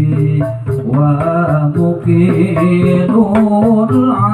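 Men singing an Arabic sholawat in unison through a PA system, with held, gliding sung notes, over terbang frame drums beating a steady rhythm.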